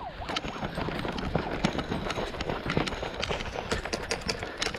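Footsteps of a player running over gravelly, rocky ground: a fast, irregular crunching patter of steps.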